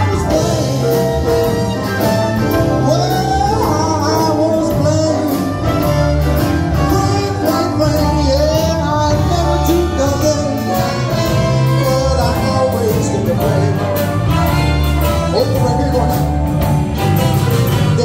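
Live big band playing: saxophones and trumpets carry the melody over drums, congas and bass, loud and continuous.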